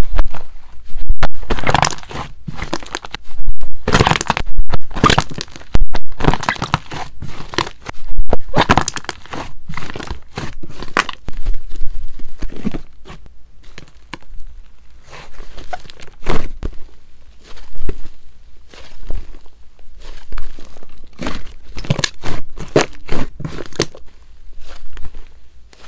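Thick pale-blue slime being pressed, stretched and squeezed by hand, giving off irregular sharp crackles and snaps as air pockets in it pop, louder and denser in the first half.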